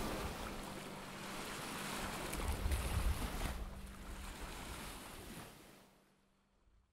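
Waves and wind on a shore: a steady rushing noise with a stronger surge about two to three seconds in, fading away over the last second or so.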